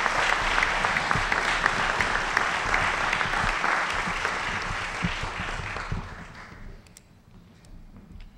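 Audience applauding, a dense patter of many hands clapping that dies away about six to seven seconds in.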